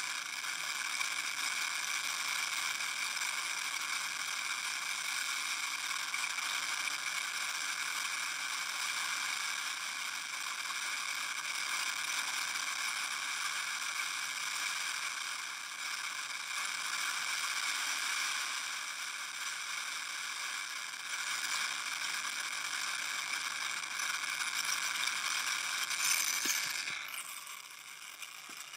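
RS-25 rocket engine firing in a hot-fire test: a steady, dense rushing noise that holds level, then drops somewhat about a second before the end.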